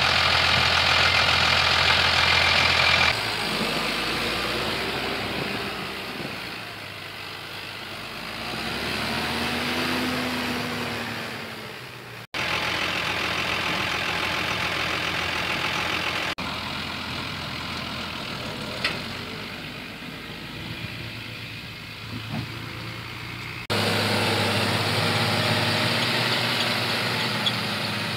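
Valtra T120 tractor's diesel engine running as it pulls an Amazone AD 3000 Super seed drill across a field. Partway through, the engine grows louder and then fades with a rise and fall in pitch as it passes, and the level jumps abruptly several times.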